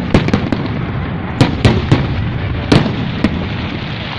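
Fireworks going off: a quick run of sharp bangs at uneven intervals, about eight in all, over a steady rumble and crackle of other bursts.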